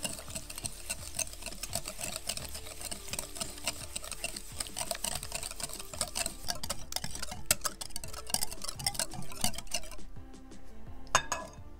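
Metal balloon whisk beating an egg and sugar batter in a glass bowl: fast, continuous clicking and scraping of the wires against the glass. Near the end one louder clink stands out.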